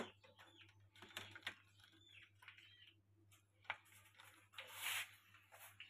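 Faint clicks of chicken eggs knocking against each other and the plastic egg tray as a hand shifts them, with a short scraping rustle near the end.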